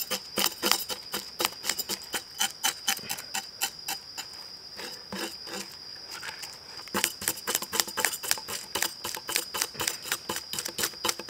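A knife scraping the scales off a small whole fish on a wooden cutting board, in quick strokes about four a second that slow for a few seconds in the middle, then pick up again. A steady high-pitched insect chorus runs underneath.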